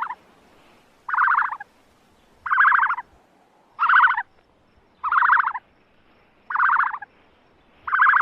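An animal giving short rattling calls, each about half a second long, repeated evenly about seven times roughly a second and a quarter apart.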